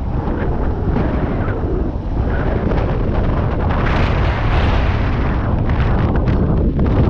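Airflow buffeting the microphone of a camera mounted on a hang glider's wing in flight: a loud, steady low rumble of wind noise, a little stronger and hissier about four seconds in.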